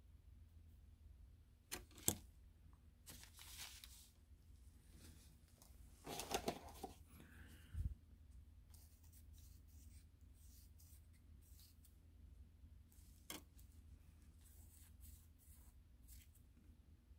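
Faint rubbing and scraping of a cotton bud cleaning inside a model locomotive's motor housing, with scattered light clicks and knocks from handling the small metal parts. The loudest is a sharp click about two seconds in.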